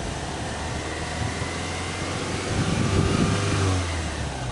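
Subaru Legacy 2.5GT's turbocharged EJ25 flat-four exhaust running at idle, with a short, mild rise in engine speed about three seconds in that eases back down.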